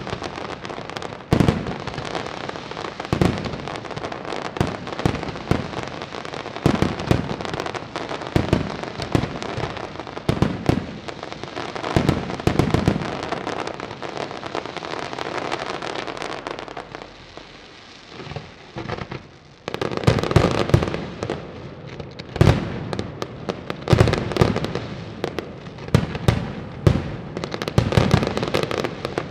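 Daytime fireworks display: a dense barrage of shell bursts and crackling stars. There is a brief lull a little past the middle, then heavy bangs resume.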